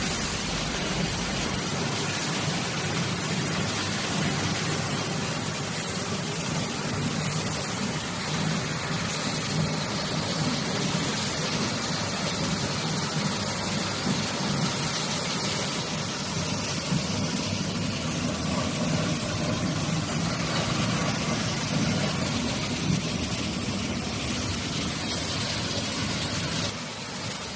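Industrial crate-washing machine running: a steady machine hum under an even hiss, dropping a little in level near the end.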